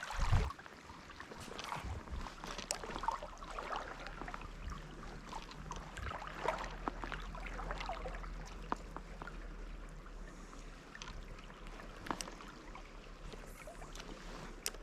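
Trout stream water babbling and splashing steadily over rocks, with a low thump right at the start.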